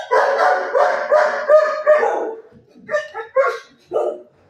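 Dog barking: a rapid run of barks for the first two and a half seconds or so, then three or four single barks.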